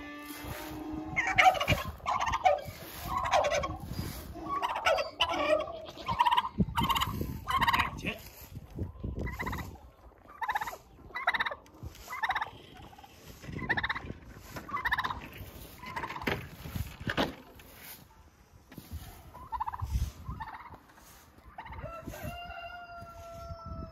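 Domestic tom turkey gobbling again and again in short rattling bursts, with a sheep bleating once near the end.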